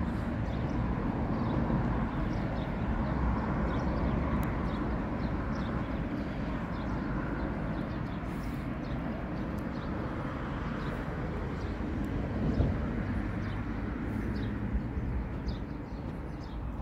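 Outdoor background noise: a steady low rumble, with faint brief high squeaks now and then.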